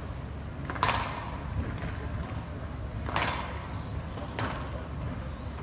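Squash rally: three sharp smacks of racket on ball and ball on the walls, the loudest about a second in, with short squeaks of shoes on the wooden court and a low crowd murmur in a large hall.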